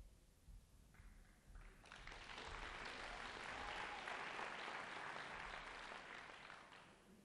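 Faint audience applause, swelling about two seconds in and dying away near the end.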